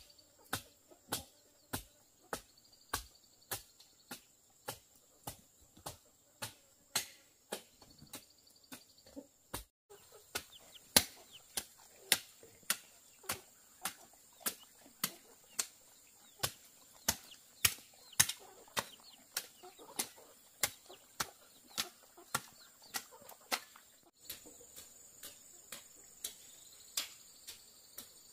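Steady chopping strokes, about one and a half a second, with crickets chirring steadily behind.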